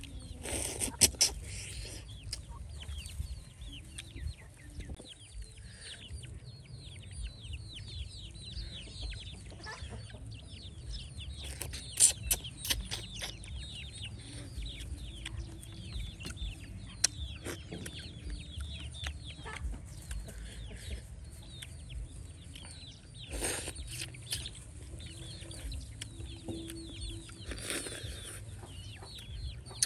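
Chickens calling in the background: a steady stream of short, high peeps, each falling in pitch. A few sharp clicks or knocks break in now and then, over a low rumble.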